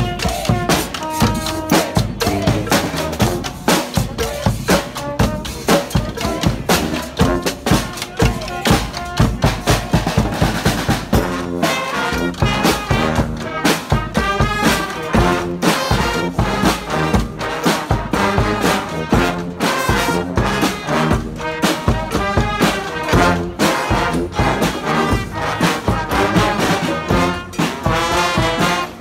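Street brass band playing: trumpets and trombones carry the tune over drums keeping a steady beat.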